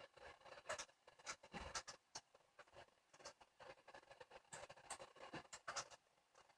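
Faint, irregular light clicks and taps, a dozen or so scattered unevenly, over a faint steady hum.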